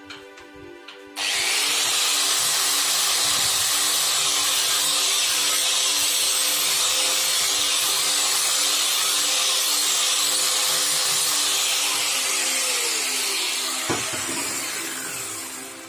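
Handheld angle grinder switched on about a second in and grinding metal, a loud steady high whirring and hiss. Near the end it winds down and fades as it is lifted off the work.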